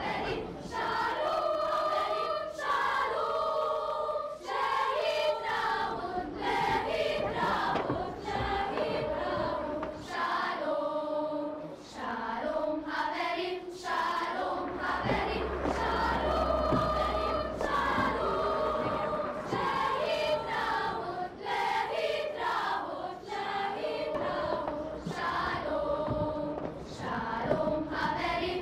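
Children's choir singing, held notes moving in phrases with short breaks between them.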